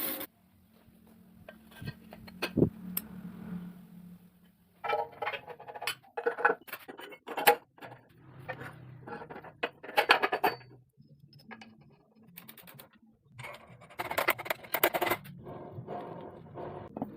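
A small motor cuts off at the start and a low hum lingers for a few seconds, then irregular bursts of metallic clinking and rattling follow, as of metal parts being handled.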